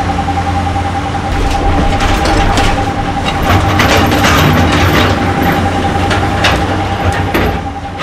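Backhoe loader's diesel engine running steadily as the machine drives with a loaded front bucket. It has a constant whine and scattered clanks and rattles that grow louder and more frequent about a second and a half in.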